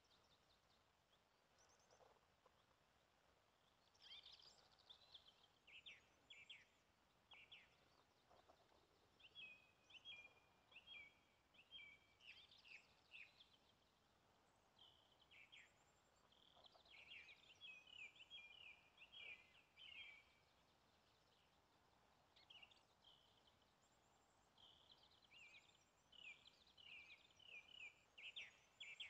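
Songbirds singing faintly in short phrases of high chirps and trills, one after another with brief pauses, over a faint steady background hiss.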